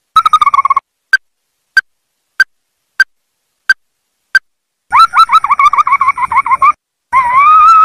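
Ruddy-breasted crake calling: single sharp notes about every 0.6 s, a brief falling trill at the start, a longer rapid trill about five seconds in, then a longer wavering whistled note near the end.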